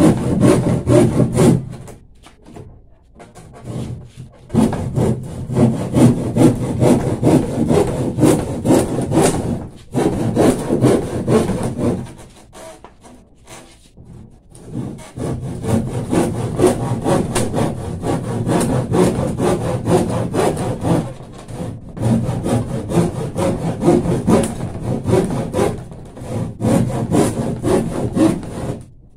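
Hand saw cutting through a sheet of plywood, in runs of quick back-and-forth strokes broken by a few short pauses.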